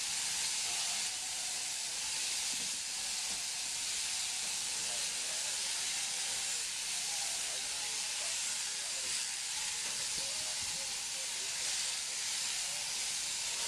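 Machine-driven sheep-shearing handpieces running as they cut through fleece, a steady hiss. Faint voices sit underneath.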